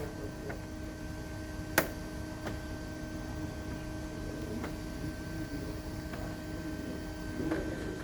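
A single sharp click about two seconds in and a few faint light ticks, over a steady electrical hum.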